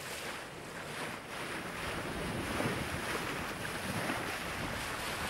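Sailboat's bow wave and water rushing along the hull as it sails at speed, with wind buffeting the microphone.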